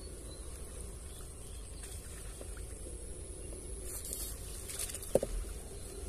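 Backpack electrofishing rig giving a faint steady electrical hum with a thin high whine while its bamboo poles work the ditch water, with one sharp click about five seconds in.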